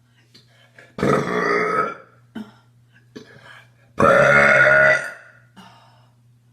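A woman burping loudly twice, about three seconds apart. Each burp is a long, pitched belch of about a second.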